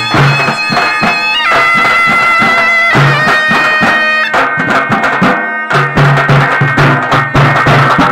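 Folk drum troupe beating large band drums with sticks in a fast, driving rhythm, under a high wind-instrument melody of long held notes. The drums break off for a moment past the middle, then come back in.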